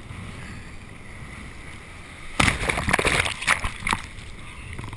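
Surf foam washing around a camera held at water level, with water splashing loudly against the microphone for about a second and a half halfway through.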